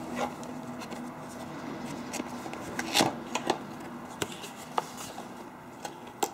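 Cardboard phone box being handled and opened by hand: light scrapes, rubs and taps of card, the inner tray sliding out, with the loudest scrape about three seconds in.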